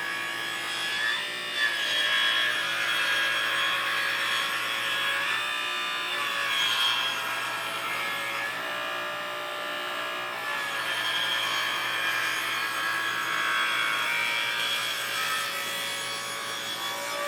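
A saw or file working stock in a workshop: a steady rasping cut with a whining ring that changes pitch a few times.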